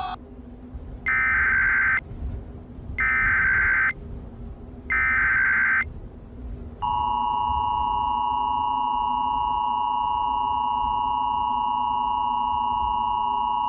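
Emergency Alert System tones. Three one-second bursts of SAME header data, about two seconds apart, are followed about seven seconds in by the steady two-tone EAS attention signal (853 and 960 Hz).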